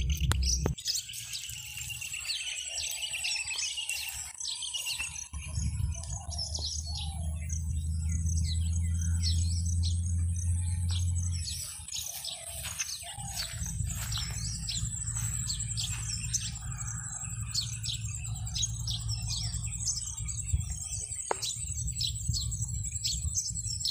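Many small birds chirping in quick, short calls throughout. Under them run a steady high buzz and a low rumble that swells for a few seconds in the middle.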